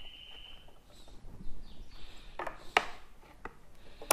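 Small tools and parts being handled on a wooden workbench: a few sharp clicks and knocks, with the soldering iron being picked up near the end. A brief steady high tone sounds in the first second.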